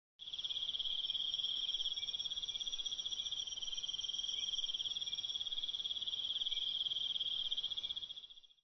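A continuous high-pitched trilling animal call: a very fast pulsing at one steady pitch, held for about eight seconds, starting abruptly and fading out at the end.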